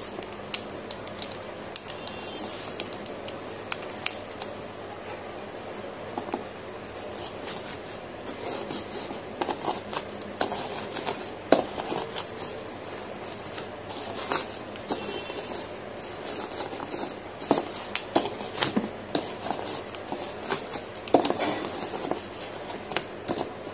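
Damp grey clay crumbs being squeezed and broken up by hand in a metal pan, then crushed with a cylindrical tool. The result is irregular crisp crackles, clicks and soft squishes, busier in the second half.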